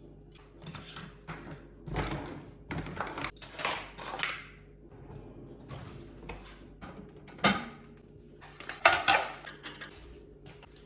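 Dishes and cutlery clinking and knocking as they are handled, with two sharper clatters about seven and nine seconds in, over a faint steady low hum.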